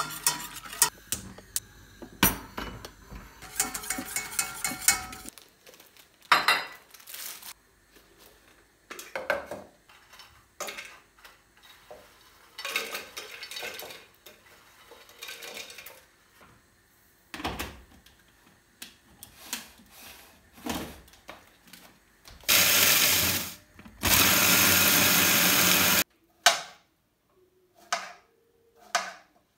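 Kitchen handling sounds: scattered clinks, knocks and rustles of utensils and containers. Near the end a small electric kitchen appliance motor runs in two short bursts, about one and a half and two seconds long, with a brief pause between them.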